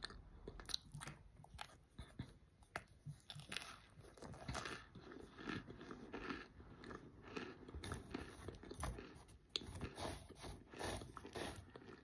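A person biting and chewing a chunk of microwave-baked cornstarch, with irregular crunches and crackles: a soft, airy crunch, which the eater puts down to having wet the cornstarch too much before microwaving.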